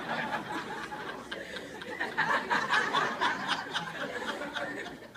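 People laughing, swelling about two seconds in and dying down near the end.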